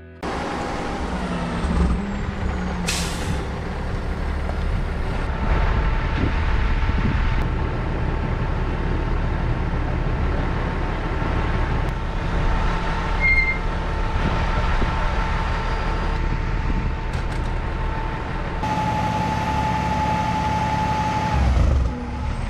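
Heavy rotator tow truck's diesel engine running steadily, with a steady whine over it that grows stronger near the end. There is a short burst of air hiss about three seconds in.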